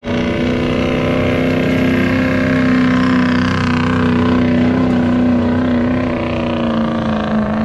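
Stock Ford Super Duty diesel pickup engine held at high, steady revs under full load while pulling a weight-transfer sled, its pitch dropping slightly near the end as the load builds.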